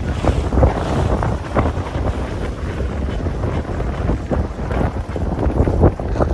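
Wind buffeting the microphone on the deck of a sailing yacht under sail, a loud, steady rumbling rush with irregular gusts, over water splashing along the hull.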